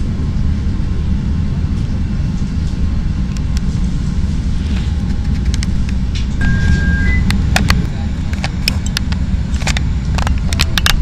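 Steady low rumble inside a CTA Red Line rapid-transit car standing at a station platform. A short two-note electronic tone sounds about six and a half seconds in, followed by a run of sharp clicks and knocks over the last few seconds.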